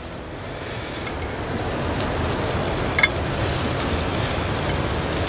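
Chicken sosaties sizzling on a wire braai grid over hot charcoal, a steady hiss, while a knife scrapes along the skewers to push them off, with one sharp metallic click about three seconds in.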